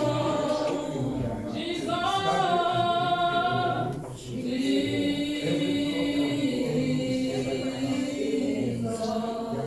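Church congregation singing a slow worship song together, unaccompanied, on long held notes, with a brief pause about four seconds in.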